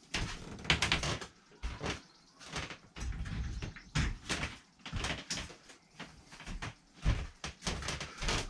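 Irregular clicks, knocks and rustles of someone rummaging among tools and storage to find a spirit level.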